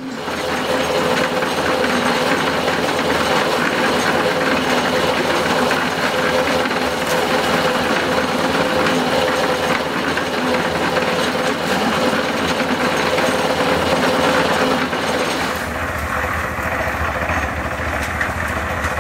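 Portable drum concrete mixer with a small engine, running steadily and churning its load: a loud, constant noisy hum. About three-quarters of the way through, the sound turns deeper and duller.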